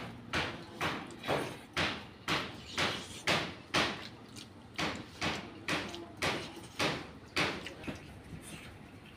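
Close-miked chewing of a mouthful of rice and pork curry, smacking about twice a second in a steady rhythm that slows and thins out near the end.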